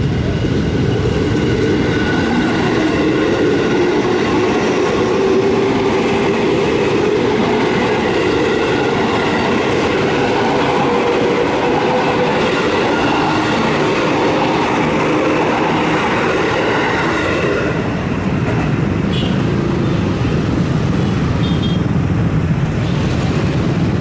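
KRL Commuter Line electric train passing close by: a steady rumble of wheels on the rails with a faint whining tone over it. The higher hiss thins out about three quarters of the way through.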